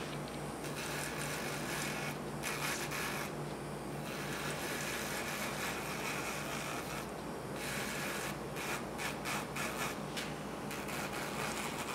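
Electric nail drill on a very low speed, its bit rubbing lightly over the natural nail to buff off the oil and shine. The rubbing is steady, with a few short breaks as the bit is lifted.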